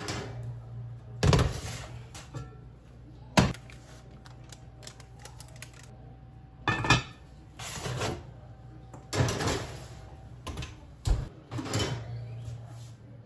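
Kitchen handling sounds: a series of knocks, clanks and rustles as a bread loaf on parchment is lowered into a heavy cast-iron Dutch oven and the pot and its lid are handled. The sharpest knock comes about three and a half seconds in, and there is a low steady hum underneath.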